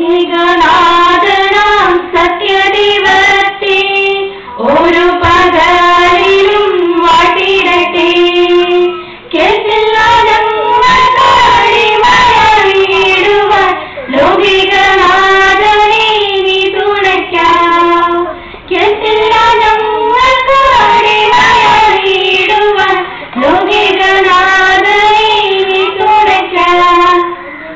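A girl singing a sung passage of a kathaprasangam (musical storytelling) into a microphone, in six long phrases with short breaths between them.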